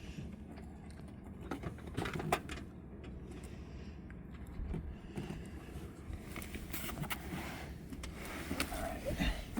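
Scattered clicks, clinks and light knocks of metal seat hardware and tools being handled while a seat base and its brackets are fitted, busier near the end.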